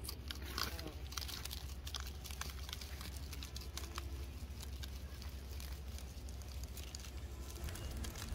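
Seasoning shaken from a shaker bottle over a grilled fish, with scattered light ticks and pattering as the grains land on the palm leaf, over a steady low rumble.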